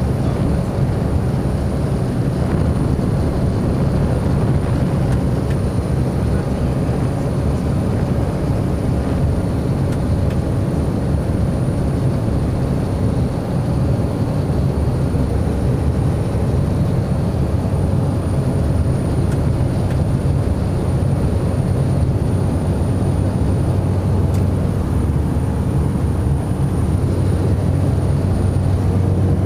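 Cessna Caravan amphibian's Pratt & Whitney PT6A turboprop engine and propeller running steadily in flight, heard inside the cockpit as a constant low drone with a faint, steady high whine.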